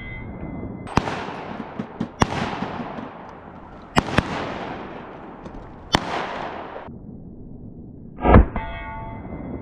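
Pistol shots, each crack followed by a long echoing tail: single shots about a second in, around two seconds, and near six seconds, plus a quick pair around four seconds. Near the end comes a louder, duller blast, followed by a brief ringing tone.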